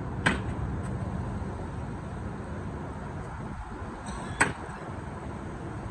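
Two cornhole bean bags landing on the board about four seconds apart, each a single sharp smack, over a steady low rumble.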